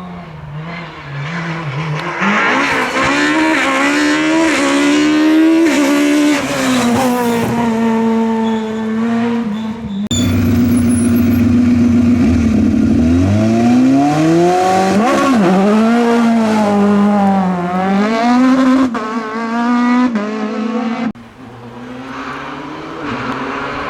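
Rally car engines at full throttle, revving hard up through the gears, the pitch climbing and dropping back at each shift. The sound cuts abruptly to another car about ten seconds in and again near the end.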